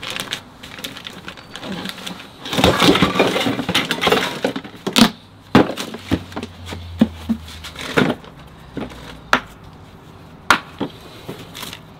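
Tools, buckets and boxes being rummaged through by hand: about two seconds of scraping and rustling, then a run of separate sharp knocks and clatters.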